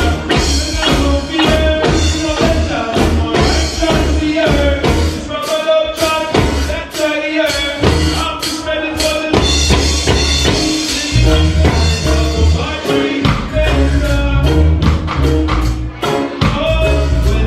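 Live roots reggae band playing: deep bass line, drum kit and sung vocals.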